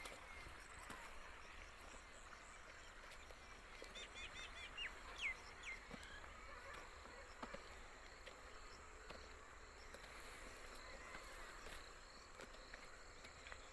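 Near-silent rural ambience: a faint steady high insect hum, with a short run of quick bird chirps about four seconds in.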